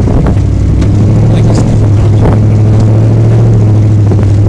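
Engine of an open off-road vehicle running steadily as it drives over a rough sand track, heard from on board, with a few short knocks and rattles.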